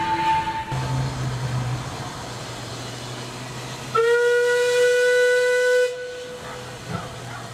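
Steam locomotive whistle blown in one steady blast of about two seconds, a little past halfway through. In the first second a high steady tone, the tail of an earlier sound, cuts off.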